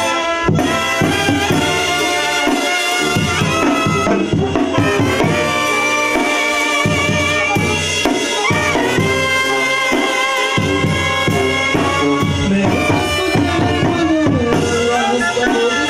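Live Mexican banda music: clarinets and brass playing held, wavering melody lines over a steady beat from a tambora bass drum with its top cymbal and a snare drum.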